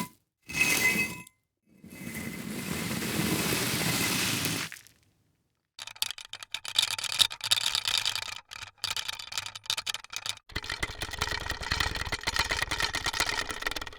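A run of separate foley effects: a short ringing hit, then a scraping sound lasting about three seconds, then a long stretch of rapid, irregular rattling and clicking.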